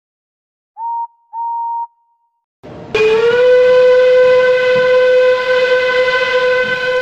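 Steam locomotive whistles: two short toots about a second in, then from about three seconds in one long whistle, rich in overtones, that starts a little flat, settles, and holds steady for over four seconds. The long whistle is shown as that of an LMS Stanier Class 5 4-6-0.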